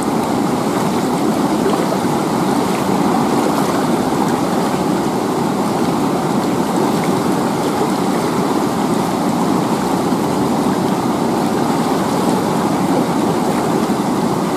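Fast-flowing river current rushing over rocks: a steady, even rush of water.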